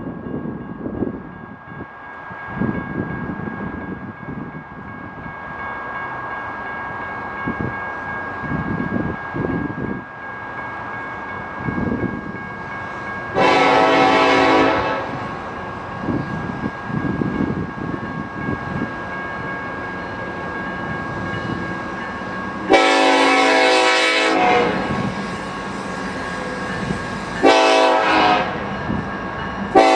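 Nathan Airchime K5LA five-chime locomotive air horn sounding four blasts, the third one short, in the long-long-short-long pattern of a grade crossing signal; the first comes about halfway through and the last starts right at the end. Between the blasts the train rumbles and clatters on the rails.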